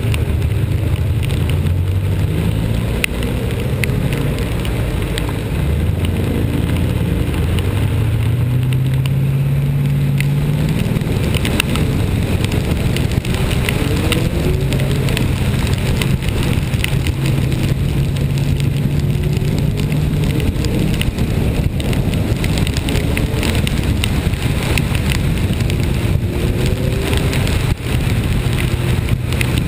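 A vehicle's engine pulling steadily, its pitch climbing and settling as it changes speed, with rain ticking on the vehicle and a steady wash of wet-road and wind noise.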